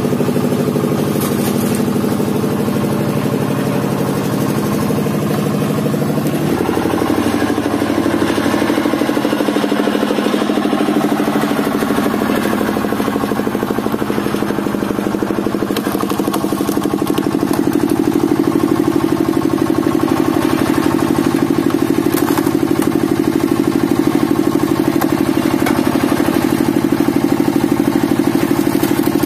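Engine powering a truck-mounted hydraulic log splitter, running steadily under the work of splitting logs; its note changes about six seconds in.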